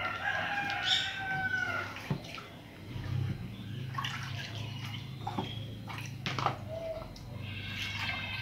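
Corn masa being squeezed by hand in a water-filled bowl and pressed through a plastic strainer, with water sloshing and dripping into the bowl below, as agua de masa is strained. A low steady hum comes in about three seconds in, and a few high calls sound at the start and near the end.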